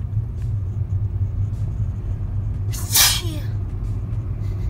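Car interior noise while driving: a steady low drone of engine and tyres. About three seconds in, a short, loud burst of breath and voice from someone in the car, falling in pitch as it ends.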